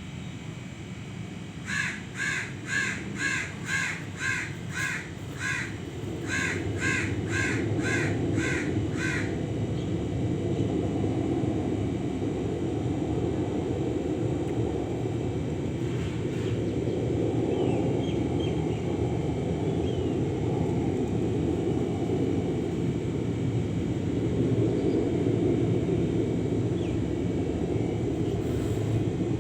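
A crow cawing in two quick runs of harsh calls, about two a second, in roughly the first nine seconds. Under it, and louder from about six seconds in, a steady low rumble.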